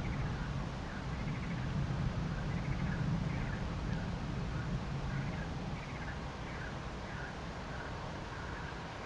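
Thunder rumbling low and fading away over the first few seconds, over a steady outdoor hiss, with faint short chirps repeating throughout.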